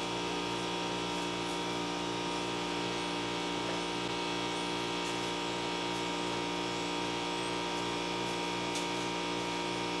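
Steady electrical hum made of several even tones, with a faint regular pulsing low down.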